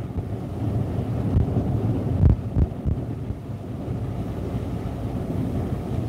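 Storm wind buffeting a parked truck, heard from inside the cab as a steady low rumble, with a couple of dull thumps a little past two seconds in; storm waves crash against the breakwall beyond.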